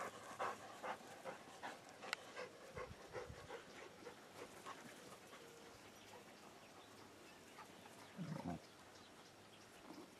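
Dogs panting in quick short breaths while they play, faint, with a brief lower, louder sound about eight seconds in.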